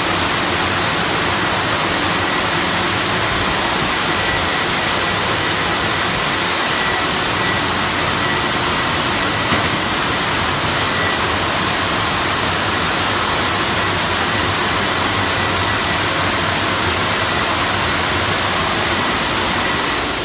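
Automatic tunnel car wash running: water jets spraying and rotating cloth brushes scrubbing a car, a loud, steady rushing hiss with a faint, thin, steady whine over it.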